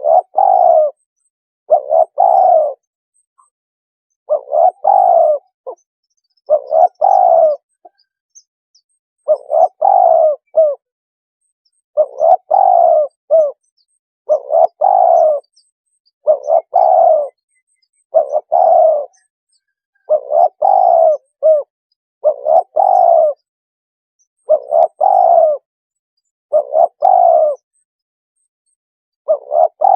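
Spotted dove cooing, one phrase about every two seconds, each a short coo followed by a longer one: a recorded decoy call used to lure spotted doves in.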